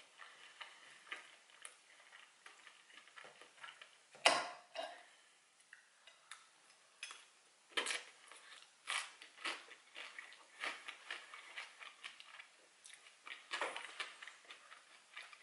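Close-miked eating sounds: a metal fork clinking and scraping on a plate, with chewing of fries and pierogies. A sharp clink about four seconds in is the loudest sound, and a series of smaller clicks follows.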